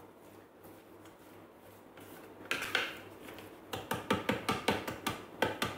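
Spatula scraping inside a stainless steel Thermomix mixing bowl, clearing chopped sweet potato from the sides. A scrape comes about two and a half seconds in, then a quick run of knocks, about six a second, near the end.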